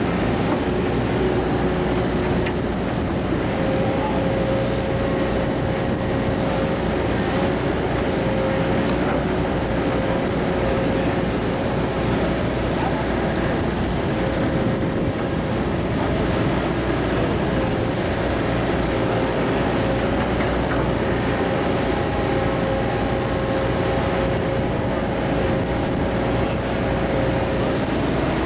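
Hitachi ZX210LC excavator's diesel engine running steadily under work, with a steady whine on top.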